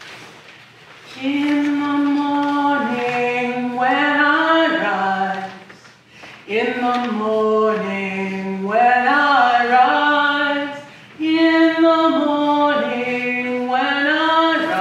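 A woman singing solo without accompaniment: a slow song of long held and gliding notes, in three phrases with short pauses for breath between them.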